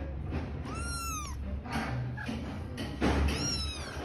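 Kittens mewing: two high-pitched mews, about a second in and again near three seconds in, each rising then falling in pitch.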